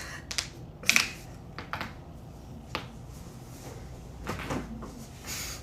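Joint cracks: a handful of short, sharp pops, the loudest about a second in, followed by softer rustling near the end.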